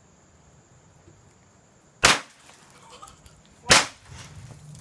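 Two sharp knocks about a second and a half apart.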